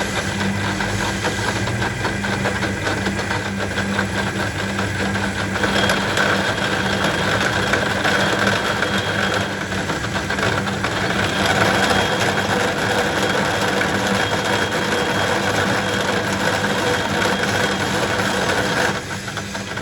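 A machine running steadily with a low hum and a dense, rapid rattle. About six seconds in it gets louder and a high whine joins it, and it drops off sharply just before the end.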